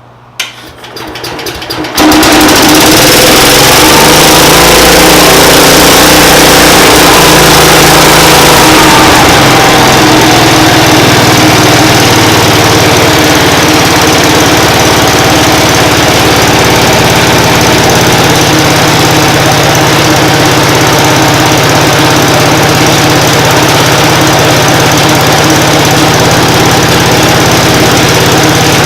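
1970 Cub Cadet Model 147 garden tractor's single-cylinder engine, helped by starting fluid, cranking briefly and catching about two seconds in: its first start in years. It then runs loud, its speed wavering for several seconds before settling into steady running.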